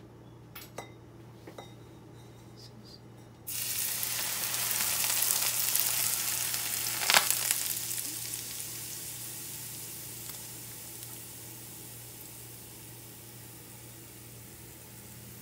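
Hot oil poured from a saucepan over chili flakes and sliced green chilies in a bowl: a sudden loud sizzle starts about three and a half seconds in and slowly dies down. There is one sharp tap about halfway through.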